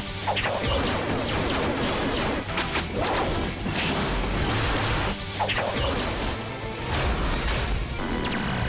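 Dramatic action-trailer music layered with repeated crash, impact and whoosh sound effects from an animated robot battle.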